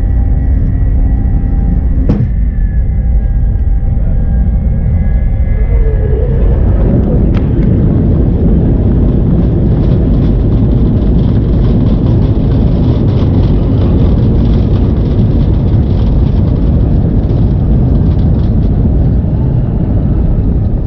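Cabin noise of a jet airliner at the start of its takeoff: steady engine tones at first, then, about six seconds in, a loud, even rumble builds as the plane rolls down the runway at takeoff power.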